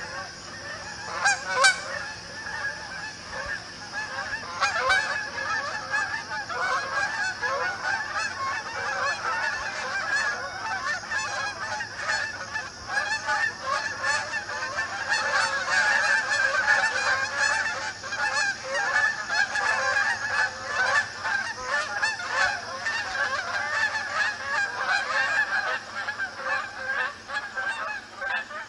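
A flock of Canada geese honking without pause, many calls overlapping, with a few sharper, louder honks in the first seconds.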